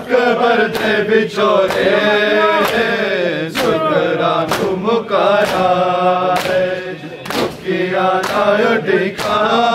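Male voices chanting a mourning lament (noha) in unison, with a sharp slap of hands on bare chests (matam) about once a second keeping the beat.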